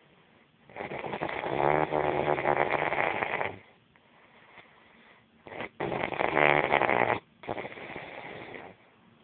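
Loud snoring in two breaths: a snore about three seconds long starting just under a second in, then after a pause a shorter loud snore followed straight away by a quieter breath out.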